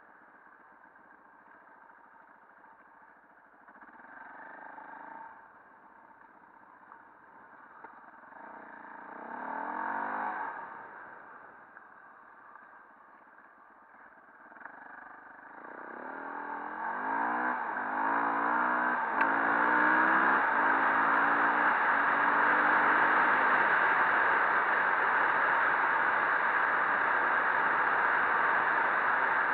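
KTM 400 enduro motorcycle's single-cylinder engine: two brief rises in revs in the first third, then from about halfway it accelerates through several gears, each climb in pitch broken by a short drop at the shift. It settles into a loud steady rush of engine and wind over the microphone.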